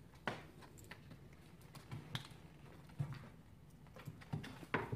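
A handful of irregular sharp taps and clicks on a wooden floor as a cat and a capuchin monkey play with a stick-like toy wand, the loudest near the end.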